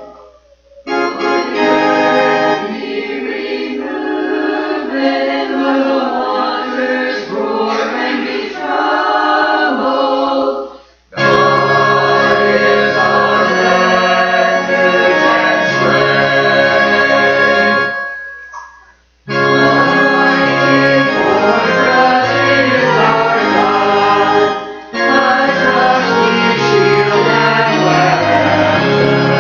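Church choir singing an anthem with keyboard accompaniment, in phrases broken by brief pauses about a second in, near eleven seconds and again around eighteen seconds.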